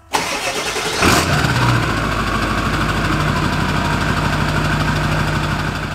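Ford 7.3 Powerstroke V8 turbo diesel heard at the exhaust tip. It starts up with a loud burst about a second in, then runs steadily at idle.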